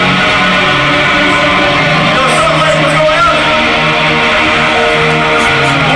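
Hardcore punk band playing live, electric guitars strummed loudly and steadily.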